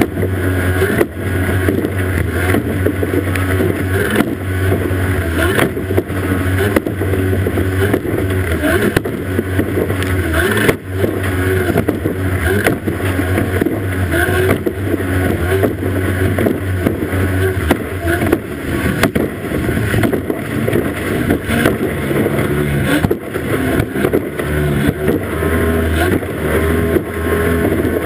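Racing boat's outboard motor running flat out under a constant rush of spray and water, with frequent sharp knocks as the hull slams over the waves.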